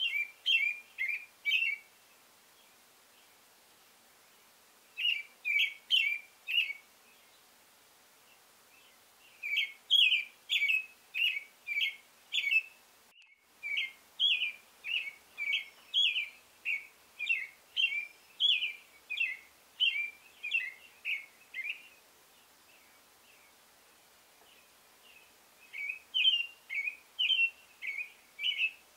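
Male American robin singing its territorial song: runs of short, clear whistled phrases, about three a second, in bursts of a few seconds with pauses between them.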